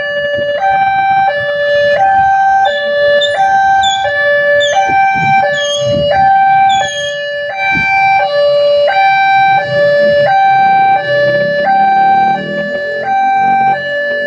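Electronic two-tone warning siren of a railway level-crossing barrier, alternating steadily between a lower and a higher tone about every two-thirds of a second. It is the alarm that sounds as a train approaches and the barrier closes.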